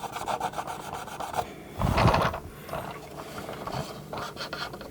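Cotton swab scrubbing back and forth on the plastic of a toy vehicle in quick, even rubbing strokes, working baby oil into the edges of stickers to lift old residue. A brief louder bump comes about two seconds in, and the strokes pick up again near the end.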